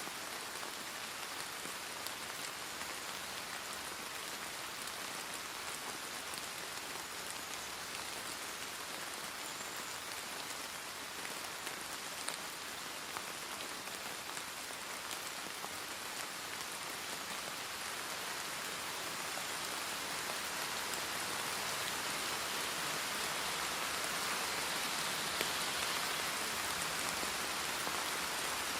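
Steady rain falling, with scattered drops ticking, getting gradually louder in the second half.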